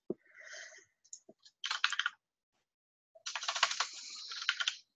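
Typing on a computer keyboard, with a few clicks: a short flurry of keystrokes about a second and a half in, then a longer run of rapid keystrokes from about three seconds in.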